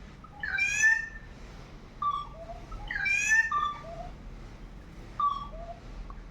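A bird calling: two loud, drawn-out calls about two and a half seconds apart, with softer short notes between and after them.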